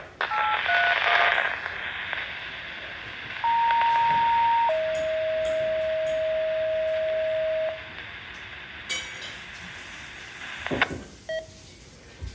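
Weather radio alert tones over radio hiss: a few quick paired beeps, then a steady tone for about a second that steps down to a lower tone held about three seconds. The hiss cuts off with a loud click about eleven seconds in.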